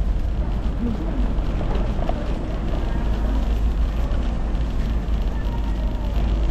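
Steady low rumble of wind on the microphone of a camera riding an electric kick scooter along a city street, with faint snatches of passers-by's voices.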